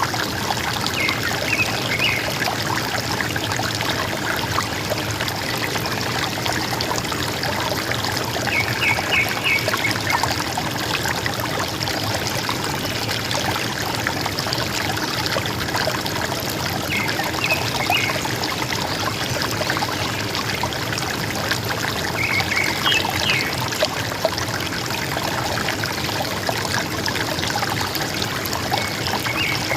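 River water running and gurgling steadily. A bird gives short bursts of three or four quick notes about every six to eight seconds.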